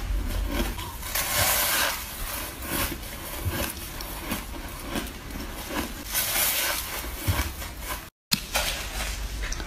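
Repeated close-up bites into a packed slab of powdery shaved ice, crunching and squeaking as the ice compresses between the teeth.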